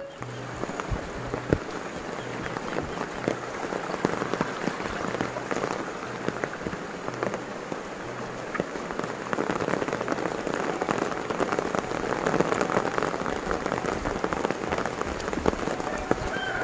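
Steady rain falling on dense tropical foliage such as banana leaves and palms, with many separate drops heard close by. The rain grows a little heavier about ten seconds in.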